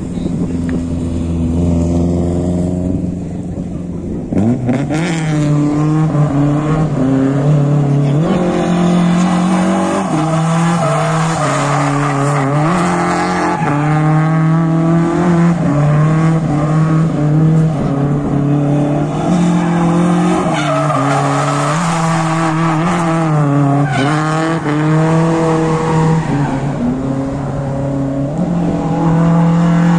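Toyota AE86 drift car's engine revving hard and its tyres squealing as it slides around cones. The engine is low for the first few seconds, climbs sharply about four seconds in, then holds high revs that swing up and down over and over through the drift.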